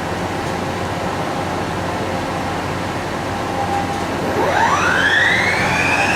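Milltronic HBM 4 horizontal boring mill spindle running with a steady mechanical hum, then about four seconds in speeding up with a whine that rises sharply in pitch and levels off as it reaches 3,000 RPM.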